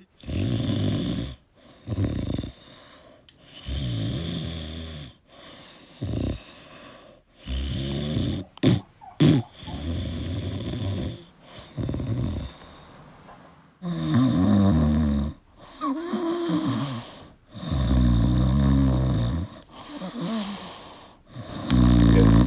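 A man snoring: a long, uneven run of rough in-and-out snoring breaths, each lasting up to about two seconds, some with a wavering pitch.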